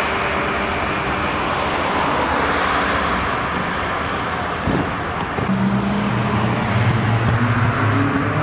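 Road traffic and tyre noise from passing cars. About five seconds in, a Nissan GT-R's twin-turbo V6 comes in at a steady low note, starting to rise near the end.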